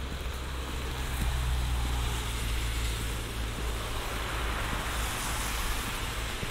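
City traffic on wet roads: a steady low rumble with a hiss of tyres on wet tarmac that swells about halfway through, as from a passing car, over light rain.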